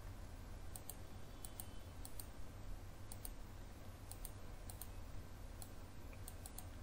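Computer mouse clicks and keyboard key presses: scattered sharp clicks, some in quick pairs, over a faint steady low hum.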